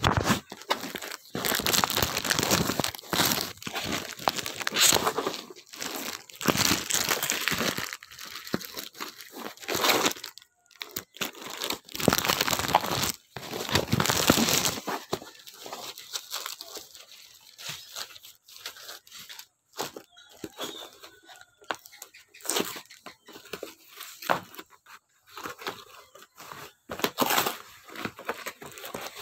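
Plastic parcel packaging being torn open and crumpled by hand: loud, dense rustling and tearing for roughly the first half, then lighter, scattered crinkling and handling noises.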